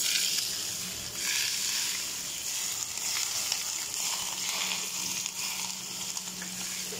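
Hot oil sizzling as it is poured over a steamed whole chicken in a steel bowl. The sizzle starts abruptly as the first oil hits and then keeps going steadily.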